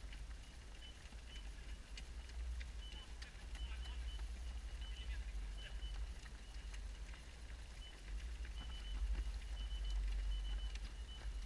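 Low, uneven rumble of wind and movement on an action camera's microphone, strongest near the end. Over it come repeated short, high-pitched peeps in clusters of two to four, and scattered faint ticks.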